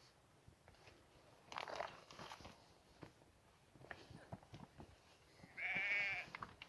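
A single wavering bleat from a goat or sheep, lasting just under a second, near the end. Before it come faint scattered clicks and a short rustling burst about one and a half seconds in.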